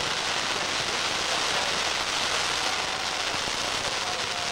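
Ground firework fountains spraying sparks with a steady hiss.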